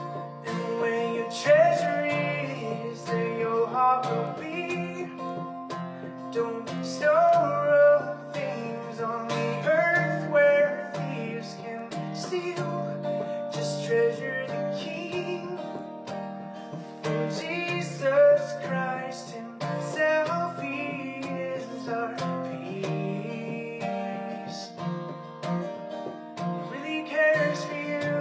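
Acoustic guitar music, strummed and plucked chords changing every few seconds, with a melody line above them that slides between notes.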